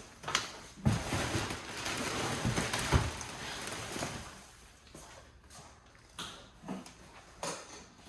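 Rustling and scraping of debris being handled and pulled out, with a few sharp knocks; busiest between about one and four seconds in, then scattered lighter clicks.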